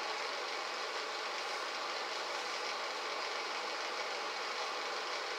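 Steady room tone: an even hum and hiss with no distinct events.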